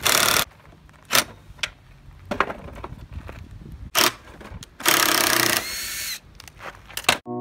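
Cordless drill driving screws into a wooden board in short bursts of the motor. The longest and loudest burst comes about two-thirds of the way through, with a whine. Sharp knocks come in between.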